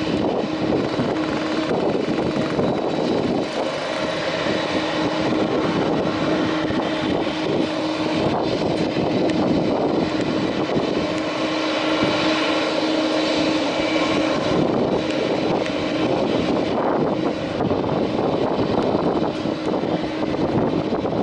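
Airbus A330's jet engines running at low taxi thrust: a steady whine and rush with a low hum held on one note, no spool-up.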